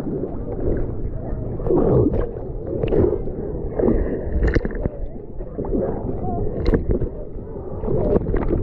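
Lake water sloshing and gurgling around a camera held half-submerged at the surface as someone swims, rising and falling in surges about once a second with a few sharp splashes.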